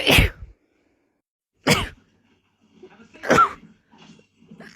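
A person sneezing in quick succession: three sharp sneezes about one and a half seconds apart, with a fourth just starting at the end.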